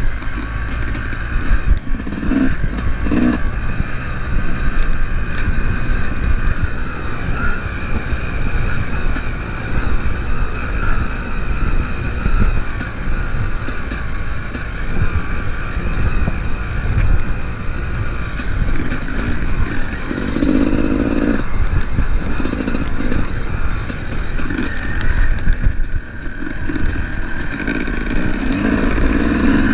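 Dirt bike engine running under load on a rough trail, heard from the bike itself, rising and falling with the throttle, with rattling and clatter from the bike over the bumps.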